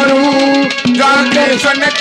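Live Haryanvi ragni music: a held, slightly bending melody line over fast, steady drum strokes.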